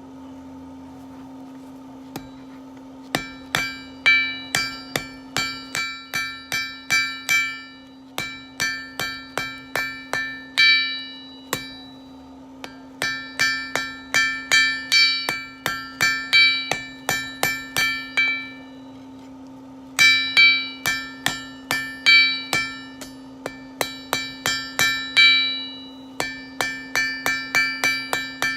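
Blacksmith's hammer striking hot steel on an anvil in runs of quick ringing blows, about three a second, with short pauses between runs, forging the end of a steel stake toward a spade-shaped taper. A steady hum runs underneath.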